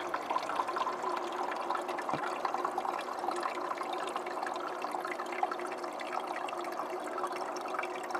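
Portable 12-volt ice maker with water running and trickling over its ice-making prongs, a steady splashing over a steady hum. This is the water shot that drops the finished ice off the prongs before the cycle starts over.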